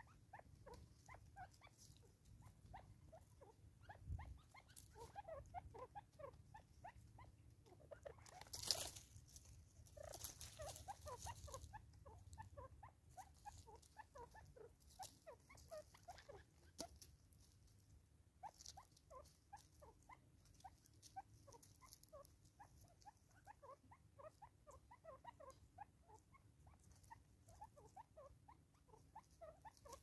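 Natal spurfowl feeding at a tree stump: a fast run of soft, faint ticks and taps as they peck at seed, with a brief louder rustle about nine seconds in.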